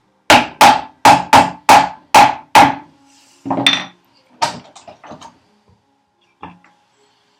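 Wooden box parts being knocked together at a snug hand-cut dovetail joint: a quick run of about eight sharp blows, about three a second, then a few scattered lighter knocks as the pieces are handled.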